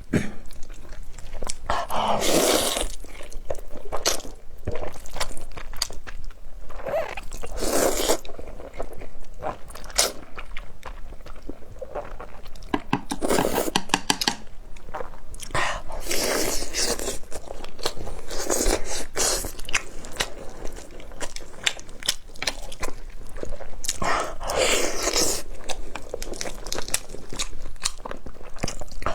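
Close-miked eating of chewy spicy stir-fried instant noodles: repeated bouts of slurping, with wet chewing and mouth sounds between them.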